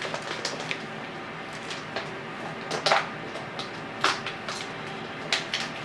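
Plastic deli-meat packaging crinkling and rustling as thin cured-meat slices are pulled out, in scattered short crinkles and taps, the sharpest about three and four seconds in.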